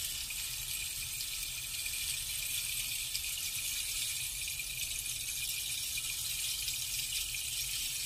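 Pearl rain stick tilted slowly, the beads trickling down inside it in a steady, even high hiss like falling rain.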